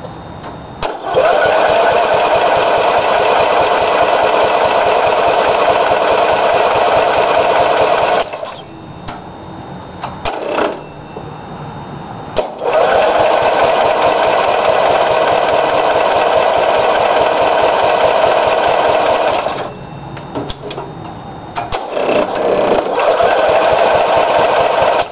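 Rebuilt Briggs & Stratton small engine running in three runs of about seven seconds each, each one starting and cutting off abruptly. It runs fast; the uploader puts that down to a wrongly adjusted governor.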